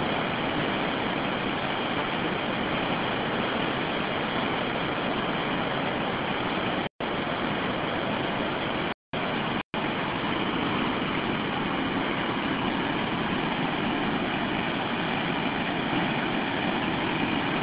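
Steady roar of a swollen river in flood rushing past in turbulent waves. The sound cuts out completely three times, briefly, around the middle.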